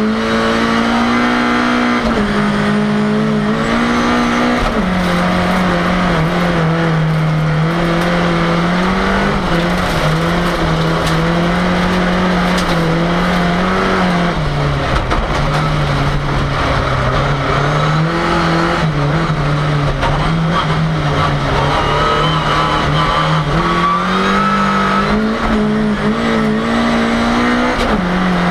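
Ford Cortina race car's engine heard from inside the car, running hard and loud. Its pitch holds for stretches, drops sharply a few times, then climbs slowly again as it pulls through the gears.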